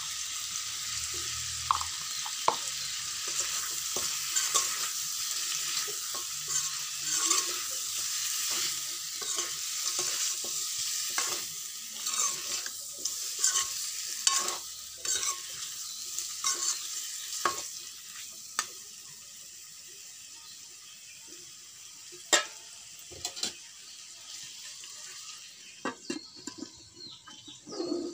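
Pork pieces sizzling in a steel wok while a metal spoon scrapes and clinks against the pan as they are stirred. The sizzle drops off about two-thirds of the way through, leaving a few sharp clinks. Near the end a metal lid is set on the wok.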